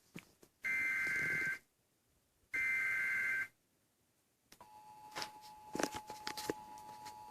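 Emergency Alert System header: two bursts of screechy digital data tones, each about a second long with a silent gap between them. After a pause of about a second, the steady two-tone EAS attention signal starts, with crackling clicks over it.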